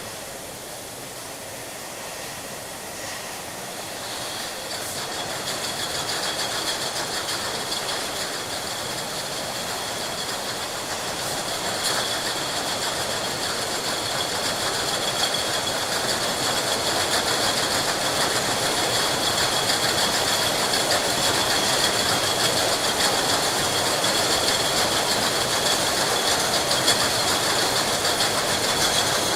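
Glass bottles clinking together continuously on a factory line over steady machine noise, a dense rattling clatter that grows louder through the first several seconds and then holds steady.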